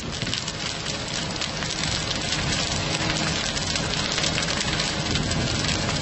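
Wooden wall framing and roof trusses of a small building burning in open flames: a steady, dense crackling of the fire.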